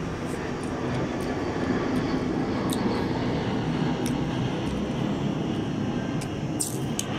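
A steady low rumbling noise that grows louder over the first few seconds and then slowly eases, with a few faint, crisp crunches of raw mango being chewed on top.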